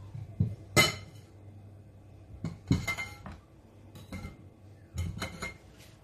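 Kitchen utensils and a metal strainer being set down on a plate: a scatter of clinks and clatters, the loudest just under a second in, with more around three seconds and a quick cluster around five seconds.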